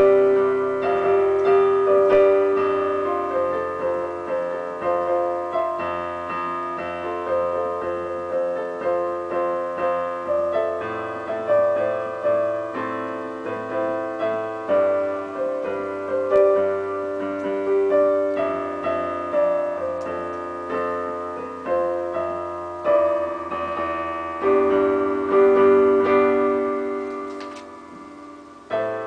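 Digital piano played solo: melody over chords, with notes struck in steady succession and each dying away. Near the end a chord is left to ring and fade before the next is struck.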